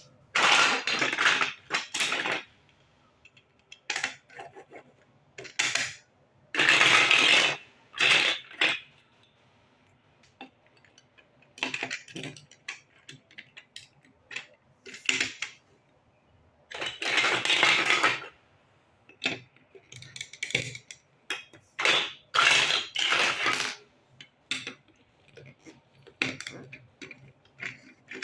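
Small plastic building blocks being handled: several bursts of clattering a second or two long as pieces are rummaged and shuffled, with short sharp clicks between them as bricks are pressed together.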